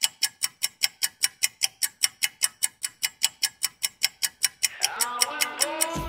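Fast, even clock ticking, about five ticks a second. Music swells in about three-quarters of the way through, over the last ticks, and a deep boom hits right at the end.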